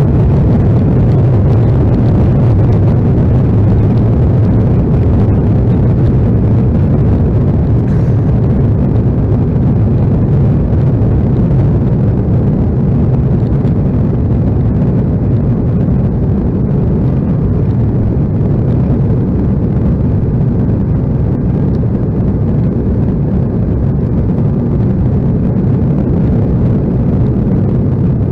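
Cabin noise of an Embraer E175 during its takeoff run or climb: the airliner's twin GE CF34 turbofans and the rushing air make a loud, steady low rumble that swells at the start and then holds level.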